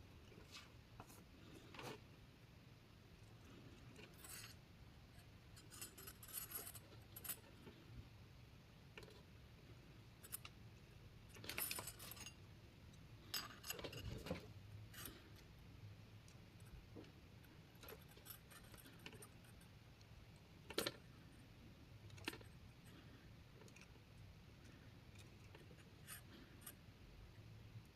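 Faint, irregular clicks and light metallic clinks of small tools and parts being handled on a workbench, with a few louder knocks, one of them about 21 seconds in.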